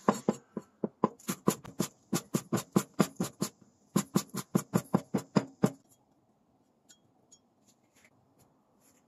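Kitchen knife chopping green onions finely on a wooden cutting board: quick, even knocks of the blade on the board, about four a second, with a short break partway through, stopping about six seconds in.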